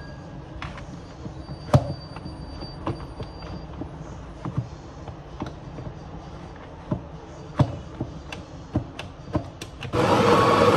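Scattered light clicks and knocks over a low background. About ten seconds in, the Breville Barista Express's vibratory pump starts abruptly with a loud, steady buzzing hum.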